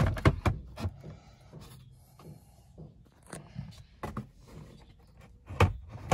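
Hard plastic knocks, clicks and rubbing as a Toyota Fortuner's instrument cluster is worked loose and pulled out of the dashboard: a quick run of sharp knocks at the start, faint scraping in between, and another loud knock near the end.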